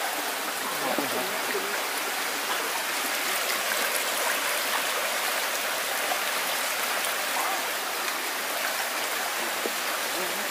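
Fast, shallow rocky stream rushing over stones and small cascades, a steady sound of running water.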